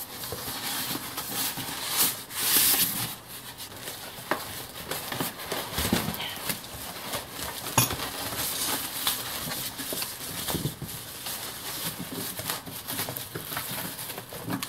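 Cardboard and plastic packing rustling and crinkling as hands unpack a bench grinder from its box, with scattered knocks and a sharp click about eight seconds in.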